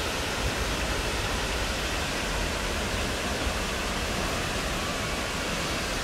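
Steady rushing of the Misol-Ha waterfall, a tall jungle waterfall plunging into a deep pool, heard as an even, unbroken hiss with a low rumble beneath.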